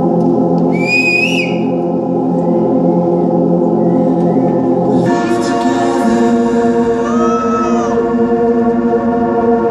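Live band music: a sustained organ-like keyboard chord that shifts to a new chord about five seconds in. A short high gliding tone sounds near the start, and arching, swelling glides come over the chord around seven seconds.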